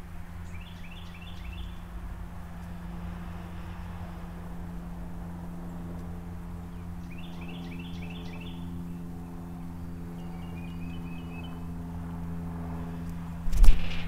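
A songbird sings a quick run of four or five down-slurred whistled notes twice, with a softer trill later, over a steady low engine-like hum. Near the end a loud thump on the metal tray feeder comes as the blue jay takes off.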